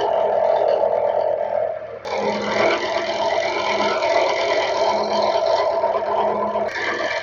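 Milling machine with its head tilted 45 degrees, its cutter fed across metal to cut a chamfer: a steady machine hum under the dense, noisy sound of the cut. The sound changes abruptly about two seconds in and again near the end.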